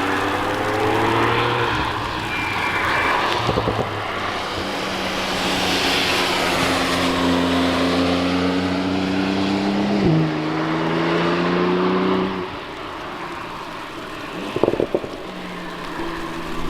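A car's engine pulling hard as it passes, its note climbing steadily with an upshift about ten seconds in, then dropping away after about twelve seconds. A hiss of tyre and wind noise sweeps past midway.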